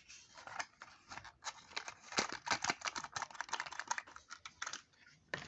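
A toy car's packaging being opened by hand: a run of irregular small clicks and crinkles of plastic and cardboard as the model is worked free.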